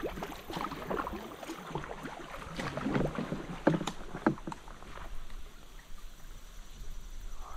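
Kayak paddle strokes splashing and dripping in the river, with knocks of the paddle against the hull. Two sharp knocks come about halfway through, then it goes quieter to a soft wash of water.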